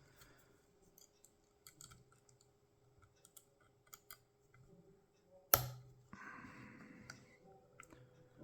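Faint, scattered metal clicks and taps from handling a tubular hex core lock and tools. About five and a half seconds in comes one sharp knock, followed by about a second of scraping.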